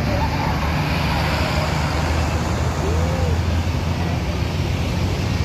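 Bus engine running as a bus passes, a steady low rumble mixed with road traffic noise.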